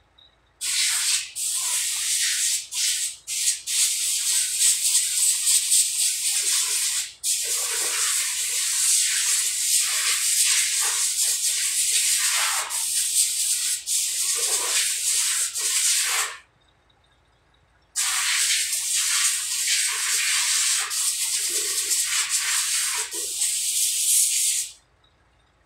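A pressurised spray hissing in two long bursts. The first runs about fifteen seconds with a few brief breaks; the second runs about seven seconds after a short pause.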